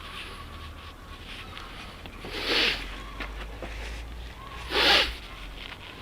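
Crow cawing twice, two harsh calls a little over two seconds apart.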